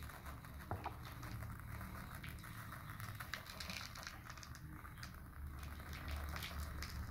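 Coarse rock salt poured from a glass jar into a plastic tub, the grains pattering down as a stream of fine, faint ticks.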